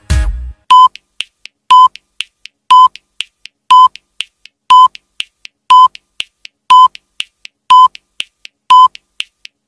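Countdown timer sound effect: a short electronic beep once a second, with faint ticks in between.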